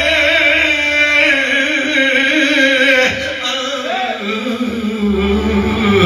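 A man singing through a handheld microphone in long ornamented phrases, his pitch wavering and sliding in melismatic runs.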